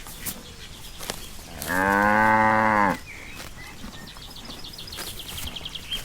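A cow moos once, a single call of about a second near the middle, rising a little in pitch and dropping at the end. Faint high chirping and small clicks sit underneath.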